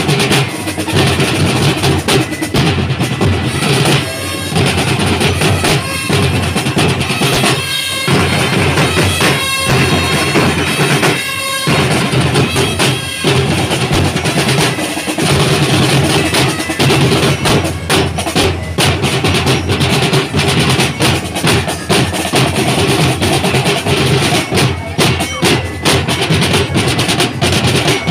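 A drum corps of many snare drums and bass drums playing a loud, fast street cadence together, with rolls and stretches of evenly spaced unison hits in the middle.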